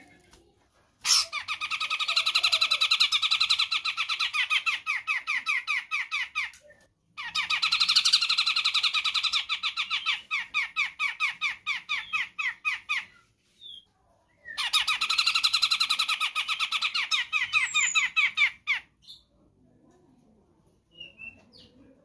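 Cucak jenggot (a bearded bulbul) calling in three long bouts of fast repeated chattering notes. Each bout lasts about four to six seconds and slows toward its end, and a few short single chirps fall between and after them.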